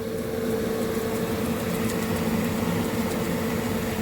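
Steady machine hum with a constant mid-pitched tone and a lower, weaker one underneath.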